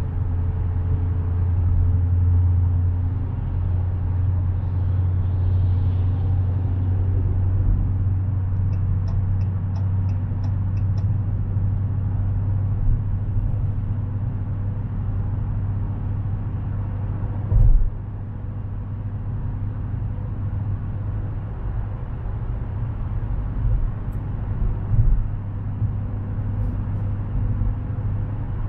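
Dodge Challenger cruising at highway speed, heard from inside the cabin: a steady low engine and exhaust drone with tyre noise on wet pavement. There is a single knock about two-thirds of the way through.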